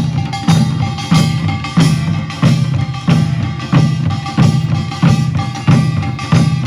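Korean pungmul band playing in procession: drums beating a steady pulse of about one and a half strokes a second, with gongs ringing and clanging over it.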